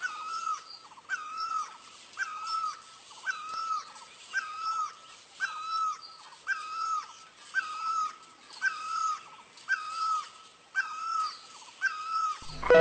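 Great barbet calling: the same loud hooked note is repeated steadily about once a second, about a dozen times.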